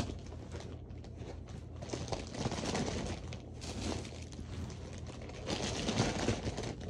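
Plastic packaging crinkling and rustling as it is handled, in irregular crackles that grow heavier in the second half.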